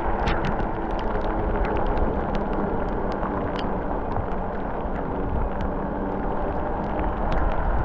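Mountain bike ride picked up by a chest-mounted camera: steady wind and rolling rumble on the microphone, with many sharp clicks and rattles throughout.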